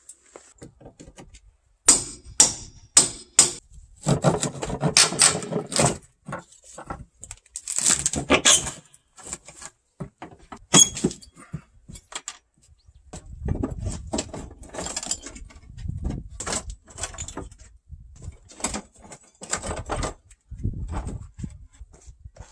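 Hammer and pry bar working old wooden floorboards loose: a run of sharp knocks of metal on wood, four of them close together about two seconds in, with stretches of scraping, rattling and clinking as boards are prised up.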